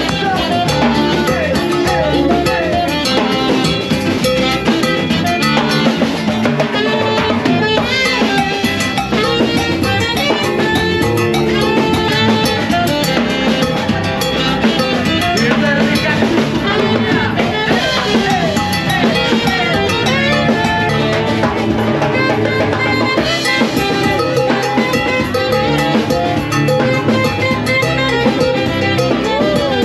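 Live band playing Latin dance music on saxophone, guitar and drum kit, with a steady drum beat.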